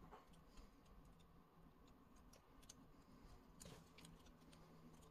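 Faint, scattered clicks of a plastic transforming dice toy's parts being handled and snapped into place, one slightly louder about three and a half seconds in, over near silence.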